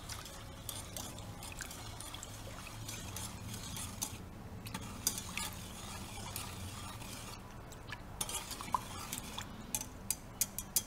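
Wire whisk stirring water with sugar, salt and ginger slices in a stainless steel saucepan: liquid swishing, with scattered clinks of the wires against the pot and a quicker run of clinks near the end.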